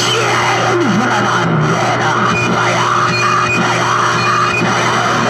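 Harsh noise music: a dense wash of crackle and hiss over a steady low hum, with short swooping pitch glides coming again and again.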